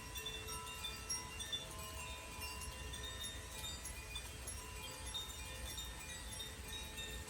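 Tuned wind chimes played by hand: many light strikes, each ringing on, at several different pitches, over a low steady rumble.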